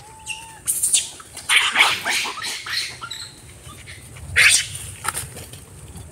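Macaque monkeys shrieking in harsh, loud calls as a troop crowds over scattered food: one outburst about a second in, a longer run of screeches around two seconds in, and another sharp shriek near four and a half seconds, with softer short calls between.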